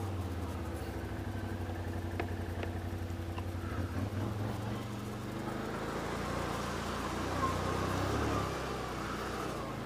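Can-Am Outlander 500 ATV's V-twin engine running steadily at low speed; from about halfway through, water splashes around its tyres as it rolls through a muddy puddle.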